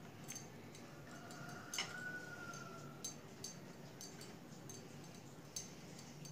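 Faint, irregular light clicks and taps of a plastic spatula against a ceramic plate and cake while whipped cream is spread over a chocolate sponge layer, over a low room hum.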